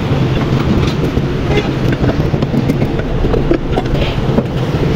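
Steady low mechanical hum over a noisy background, with a few faint clicks as the engine's cylinder head is handled.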